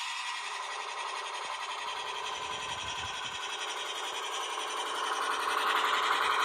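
DCC sound decoder in a model UGL C43 diesel locomotive playing its engine sound through the model's small onboard speaker, a steady mechanical hum that grows louder about five seconds in.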